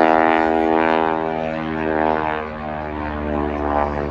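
Stearman biplane's radial engine and propeller in a steady drone during aerobatics, growing fainter after about two seconds.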